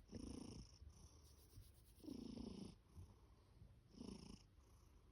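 Pet cat snoring softly as it sleeps: three slow breaths about two seconds apart.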